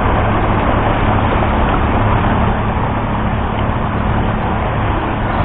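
Kayak being towed fast behind a motorboat: a loud, steady rush of wind and churning wake water, over the even hum of the boat's Mariner 60 outboard motor.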